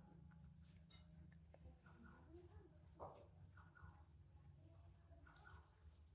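Near silence with a steady high-pitched chorus of crickets and a low hum beneath it, broken by a few faint short calls.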